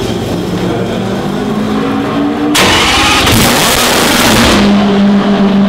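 Matra V12 of a 1981 Ligier JS17 Formula One car idling, then revved hard once at the throttle linkage about two and a half seconds in. The rev lasts about two seconds before the engine drops back to a steady idle.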